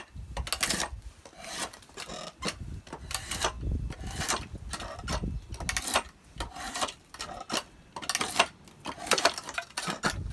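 Draw knife shaving a green ash billet clamped in a shave horse: repeated scraping strokes as the rough cylinder is smoothed.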